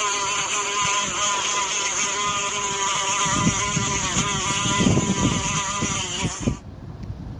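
Housefly buzzing sound effect: a steady, wavering buzz that cuts off suddenly near the end, with soft low thumps in its second half.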